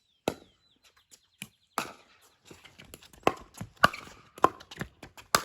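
Pickleball rally: paddles striking a hard plastic pickleball with sharp pops, about ten hits at uneven spacing, coming quicker in the second half. Faint bird chirps early on.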